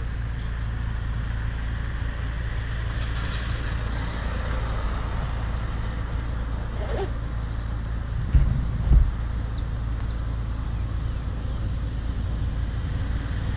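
Single-cylinder Yamaha Ténéré 250 motorcycle engine idling steadily, with two dull thumps about eight and nine seconds in.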